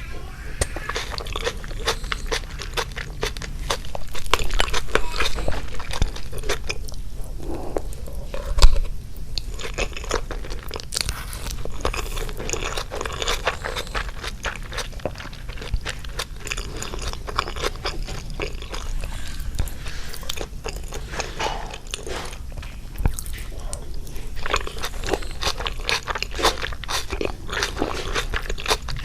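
Close-miked eating of mapo tofu with rice and cucumber pickles: steady crunching and chewing. There is one sharp knock about nine seconds in.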